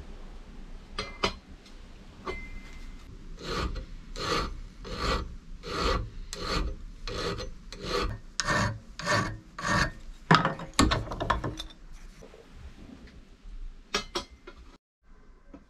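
A hand file rasping on metal in about a dozen even strokes, roughly one every 0.7 seconds, with a few sharp clicks before and after.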